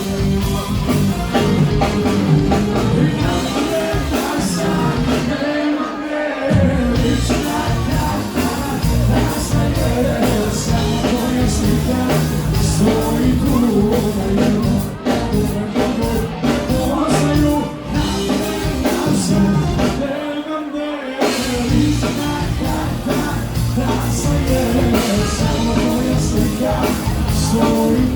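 Live band playing loud amplified music. The bass drops out briefly twice, about six seconds in and about twenty seconds in.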